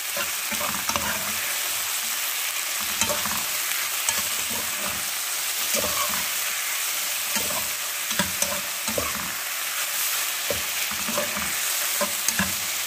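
Sliced onions and garlic sizzling as they sauté in hot oil in a frying pan, stirred with a metal slotted spoon that scrapes and clicks against the pan.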